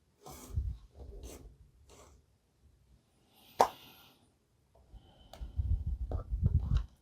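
Hands handling the small plastic parts and packaging of a model train set: rubbing and scraping with light knocks, one sharp click about halfway through, and a busier run of handling near the end.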